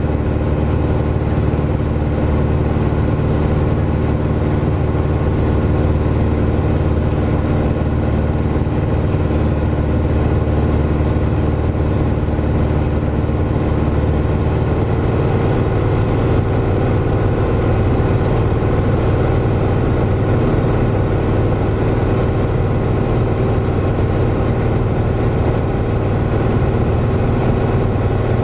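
Piper PA-28's piston engine and propeller running steadily in flight, heard inside the cabin as a loud, even drone.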